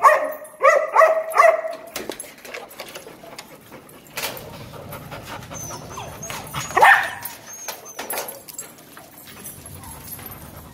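Dogs barking: a quick run of about four short barks at the start, then a single bark about seven seconds in, with scattered clicks between.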